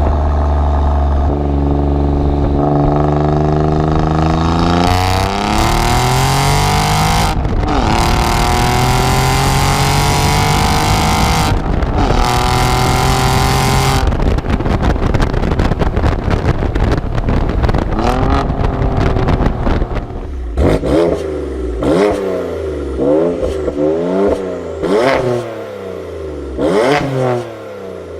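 A twin-turbo six-cylinder sports car engine accelerating hard, its pitch climbing with a few abrupt breaks like gear changes. In the last few seconds it is blipped up and down in about six short revs.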